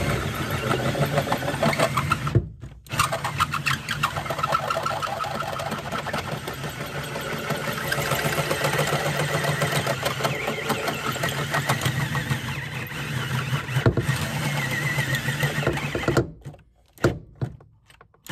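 Cordless drill running under load as its bit grinds through the van's steel floor and an underlying brace. It stops briefly about two seconds in, then drills on steadily, and cuts out near the end with two short trigger blips.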